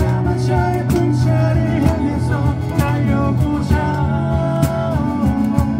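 Live acoustic band playing a song: strummed acoustic guitars and keyboard chords over a steady cajon beat, with a voice carrying the melody.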